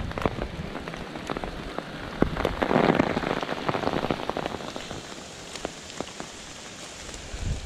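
Steady rain falling on a forest floor of dead leaves, with many single drops ticking close by. A louder stretch of rustling noise swells up about two and a half seconds in and dies away about two seconds later.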